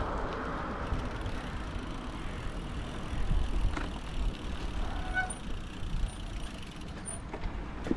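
Steady wind rumble on the microphone with rolling noise while riding an e-bike.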